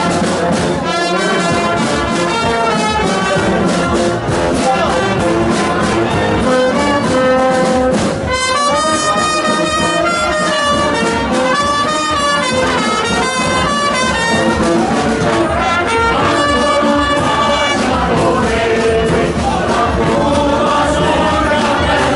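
A brass band of trumpets and trombones playing a lively tune, with a stretch of quick, rapidly repeated high notes about halfway through.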